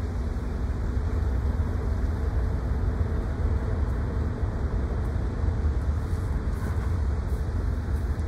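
Steady low hum and rumble from the docked M/S Baltic Princess cruise ferry's machinery, mixed with wind buffeting the microphone.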